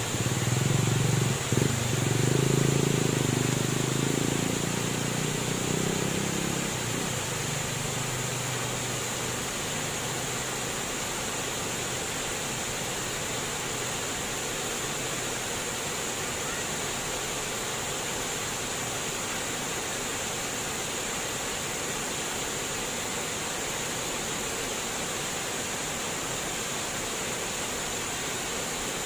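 Flowing water rushing steadily and evenly. A low rumble in the first few seconds fades out by about seven seconds in.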